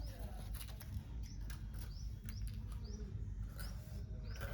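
Birds chirping faintly: a string of short, high chirps that rise in pitch, several each second.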